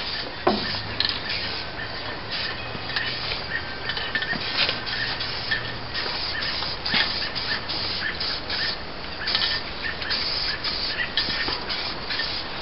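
Aerosol spray can of rust primer hissing in many short, quick bursts.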